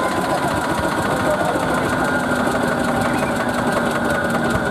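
Small vintage diesel tractor engine running steadily and loudly.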